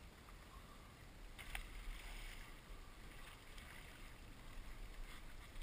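Water sloshing and splashing alongside a boat as a hooked musky thrashes near the surface by the landing net, over a low wind rumble on the microphone. A single sharp click comes about one and a half seconds in.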